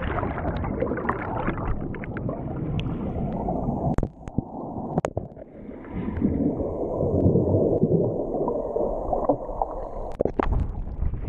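Muffled underwater gurgling and churning of pool water, picked up by a GoPro that has sunk below the surface, with a few sharp clicks.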